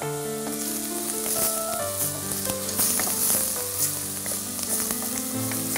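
Steady sizzle of food frying in a pan, with the light taps of a kitchen knife mincing garlic on a wooden cutting board, over soft background music.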